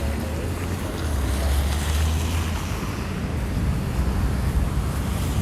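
Wind buffeting the microphone in a low rumble, over a steady rush of street traffic noise that swells about a second in.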